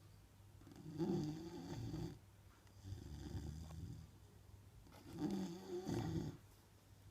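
A sleeping Neapolitan mastiff snoring in three long breaths, the first and last louder than the middle one.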